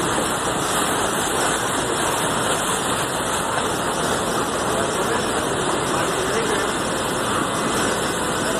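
Steady rushing water noise, even in level with no distinct splashes or knocks.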